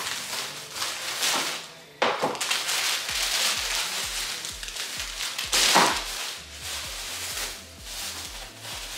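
Plastic grocery bags rustling and crinkling as groceries are lifted out of them. From about three seconds in, background music with a steady bass beat plays underneath.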